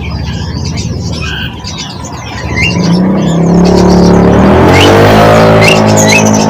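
A motor vehicle's engine passes close by, getting louder from about two and a half seconds in and rising in pitch, with a few short rising bird chirps over it.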